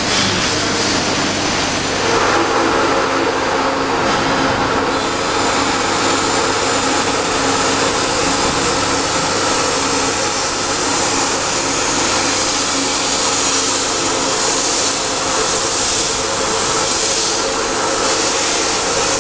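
Liquid sachet packing machine (milk/water form-fill-seal type) running with a steady mechanical hum and whir; its sound grows louder and fuller about two seconds in.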